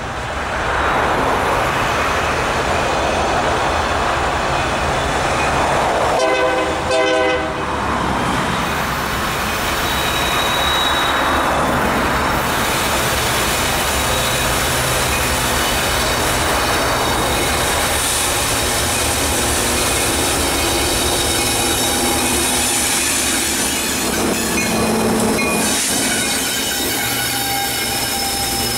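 Diesel freight train approaching and passing at a grade crossing, led by a Union Pacific SD70M and a BNSF ES44C4: a steady, loud rumble of engines and wheels on rail. The horn sounds, with a clearly pitched chord about six seconds in.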